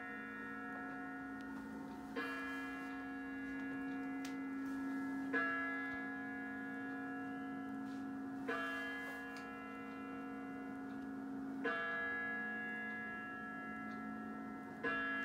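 Kremlin Spasskaya Tower chimes striking midnight: five bell strokes about three seconds apart, each ringing on until the next over a steady hum. These are the strokes of twelve that mark the New Year, heard through a television speaker.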